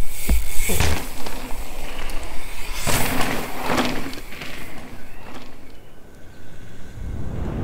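Mountain bike landing a jump with a low thump, then its tyres skidding and scrabbling over loose gravel, with two sharp rushes of gravel spray as it carves through berms about three and four seconds in.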